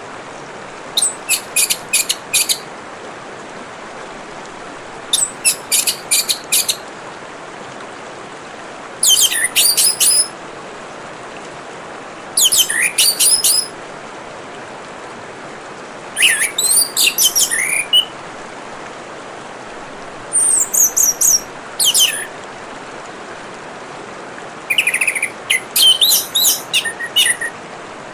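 Orange-headed thrush singing in short, rapid, high-pitched phrases that come every three to four seconds, over a steady trickle of running water.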